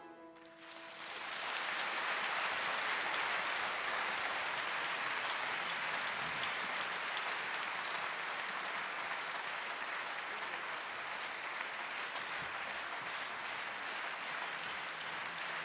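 Audience applauding. The clapping builds over the first second or so as the last notes of the music die away, then holds steady.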